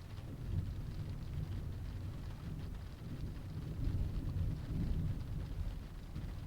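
Rain on a car's body heard from inside the cabin, a steady patter with a low rumble that swells and peaks about four to five seconds in.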